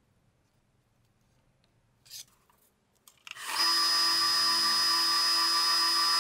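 Bench drill press motor starting up a little over three seconds in and then running at a steady speed with a whine, its bit set over a pin-hole mark on a steel knife tang.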